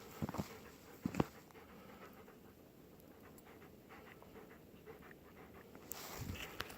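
A dog panting softly in quick, short breaths, with a couple of sharp knocks in the first second or so.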